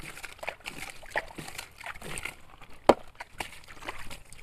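Water splashed by hand over a plastic toy dump truck, a run of uneven splashes and drips, with one sharp click about three seconds in.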